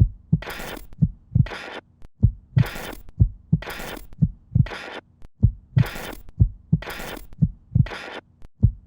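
A rhythmic soundtrack of deep, heartbeat-like low thumps alternating with short bursts of hiss, about one hiss a second, in an even, repeating pattern.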